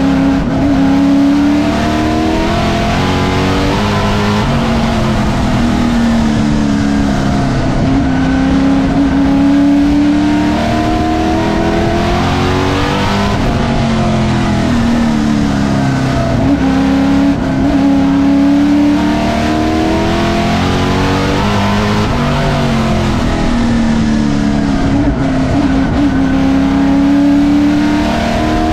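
Vintage stock race car's engine at racing speed, heard from inside its stripped cockpit. The revs fall and climb again every four or five seconds as the car goes around the oval.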